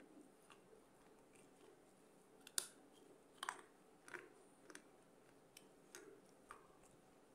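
Sharp crunches of a piece of clay pot being bitten and chewed close to a microphone: one loud crack about two and a half seconds in, then a handful of smaller crunches.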